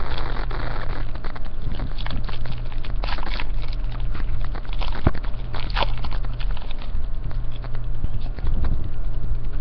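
Trading cards and a foil booster-pack wrapper handled right at the microphone: rustling and crinkling with scattered sharp crackles, over a low rumble from the hands moving close to the mic.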